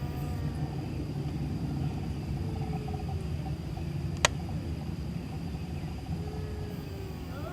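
Cat yowling at night: the end of one drawn-out yowl fades out, two faint, low moaning calls follow, and a new yowl begins right at the end, all over a steady low rumble. A single sharp click comes about four seconds in.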